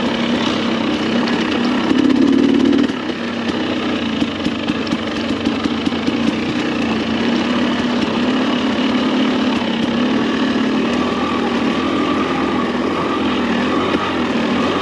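Dirt bike engine running steadily while riding, with a louder stretch of throttle about two seconds in.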